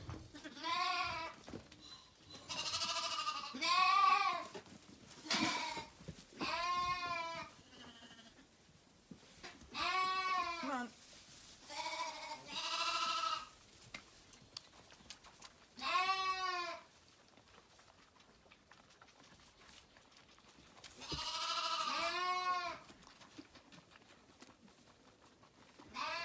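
Zwartbles lambs bleating repeatedly while waiting for the bottle: about nine bleats, each up to about a second long, with a pause of a few seconds before the last.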